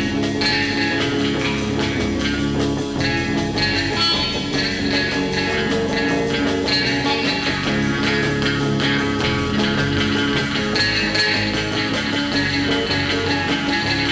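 Background rock music led by guitar, instrumental, with a steady beat.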